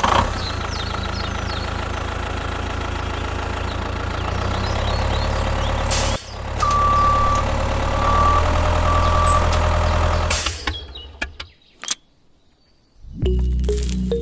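Steady vehicle engine running, with three short beeps like a reversing alarm partway through. It cuts out after about ten seconds, and music starts near the end.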